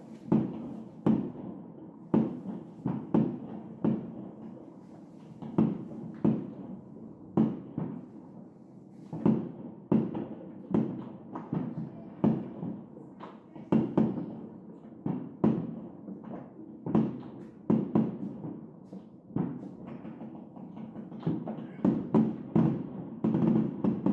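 Fireworks bursting in the sky, many separate bangs at an irregular pace of about one to two a second. They sound muffled, heard through the window glass.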